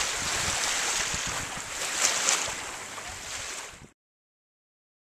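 Steady outdoor wind noise with irregular low buffeting on the microphone and a couple of brief louder rustles about two seconds in. The sound cuts off abruptly about four seconds in.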